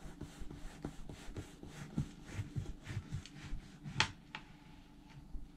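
Serrated bread knife sawing through a crusty tiger bread loaf: quick back-and-forth strokes, about four a second, each with a dry rasping crunch of crust. A sharper tap about four seconds in, as the blade reaches the cutting board.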